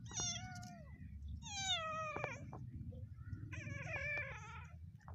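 A kitten meowing three times: long, high-pitched cries, each falling in pitch at its end, over a steady low rumble.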